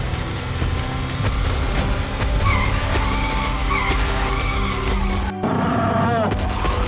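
Cartoon car sound effects: a car engine running with tyres skidding and squealing, over background music. The squeal wavers through the middle, and the sound changes abruptly about five seconds in.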